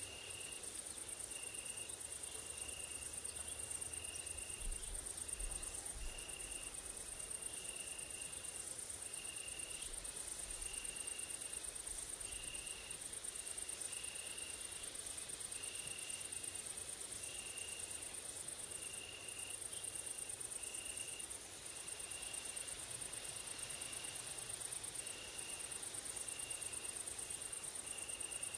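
Grasshoppers and crickets stridulating: a continuous very high, shrill buzz, with a lower, shorter chirp repeating about once a second.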